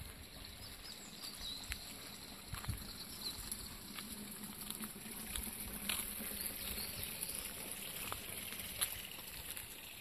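Outdoor daytime ambience: a steady high insect buzz throughout, with scattered light ticks and a few faint high chirps.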